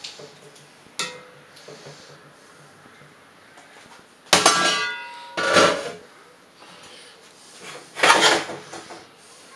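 Metal pots and lids being handled: a sharp knock about a second in, then three loud clatters about four, five and a half and eight seconds in, the first with a metallic ring.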